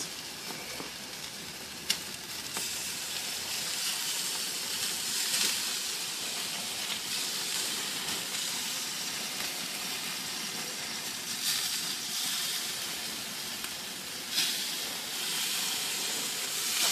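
Pork chops sizzling on a hot gas grill, a steady hiss, with a single sharp click about two seconds in.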